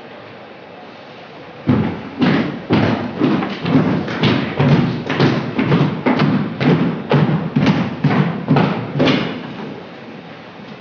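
A steady run of about sixteen loud thumps, about two a second, starting about two seconds in and stopping about nine seconds in.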